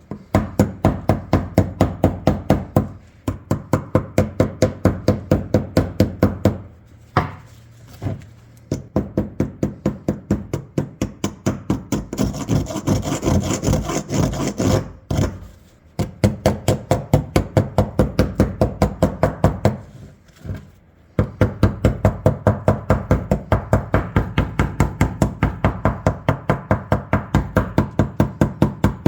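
Rapid, evenly spaced hammer taps on the rusted steel barrels of an old double-barrel shotgun, about five a second with a few short pauses, knocking off the crust of rust left after electrolysis. Around the middle the tapping gives way briefly to a scraping, rasping sound.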